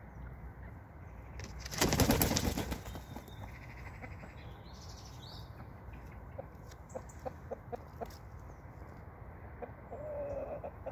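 A chicken flapping its wings in a loud, brief flurry about two seconds in. A few faint clicks follow, and a short, wavering chicken call comes near the end.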